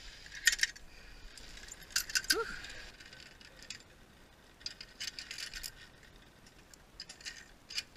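Steel carabiners and a zipline trolley clinking and clicking as they are handled and clipped onto the harness lanyard and cable, in small clusters of metallic clinks.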